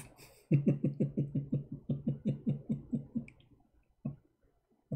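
A man's voice making a rapid string of short pitched pulses, about six a second for nearly three seconds, followed by two brief single vocal sounds near the end.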